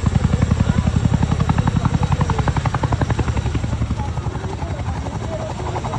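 Boeing CH-47 Chinook tandem-rotor helicopter hovering low, its two rotors beating in a fast, steady chop of about ten pulses a second. It eases a little quieter about two-thirds of the way through.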